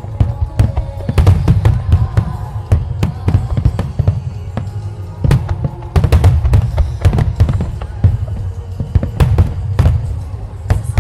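Fireworks display: a dense, irregular barrage of firework bangs and deep booms, with music playing along underneath.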